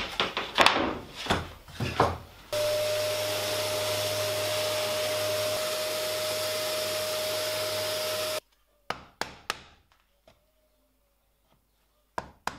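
A few knocks and clatter, then an electric random orbital sander sanding plywood runs steadily with a single humming tone for about six seconds and cuts off suddenly. After that come sharp single taps of a wooden mallet on a chisel, freeing the CNC-cut letters from their holding tabs.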